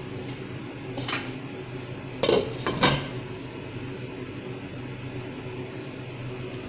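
A glass pot lid is set onto a pot of boiling daal: a light click, then two sharp clattering knocks about half a second apart as the lid lands and settles. A steady low hum runs underneath.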